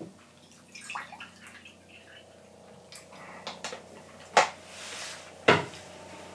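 Kitchen handling sounds: a few light knocks and clinks, then two sharp clacks about four and a half and five and a half seconds in, with a short hiss of water between them.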